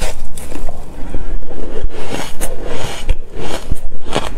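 Close-miked biting and chewing of a block of packed shaved ice topped with matcha powder: loud, irregular crunching, several crunches a second.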